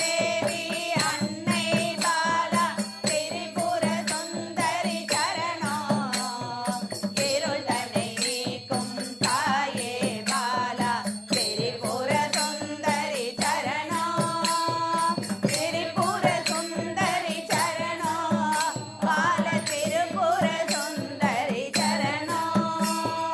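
A group of women singing a Tamil devotional song in unison, with small hand cymbals struck in a steady beat.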